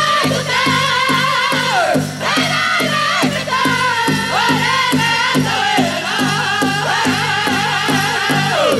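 Powwow drum group singing a grass dance contest song: several high, wavering voices in unison over a steady beat on a big drum, roughly three strokes a second.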